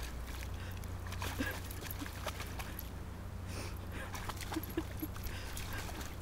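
Dog wading through shallow lake water, with small light splashes and lapping over a low steady hum. Three short faint squeaks come about four and a half seconds in.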